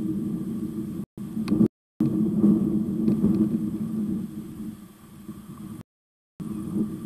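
Low rumble with a steady low hum in it, fading somewhat past the middle. It cuts out abruptly to dead silence three times, the audio of a live stream dropping out.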